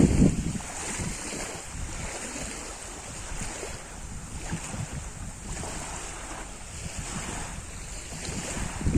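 Lake water splashing and lapping in small waves that come in swells every second or two, with wind buffeting the microphone, heaviest right at the start.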